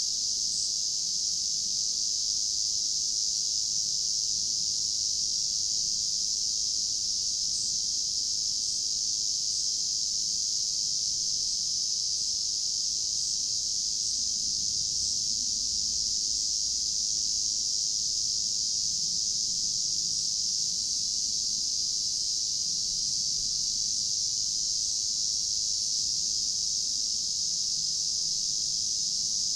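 A steady, unbroken chorus of insects singing in a high band, with a few faint short chirps above it.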